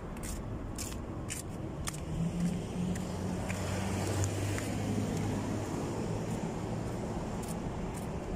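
A passing car's engine hum on the road, swelling from about two seconds in and easing off under steady traffic noise. Footsteps on pavement, about two a second, in the first two seconds.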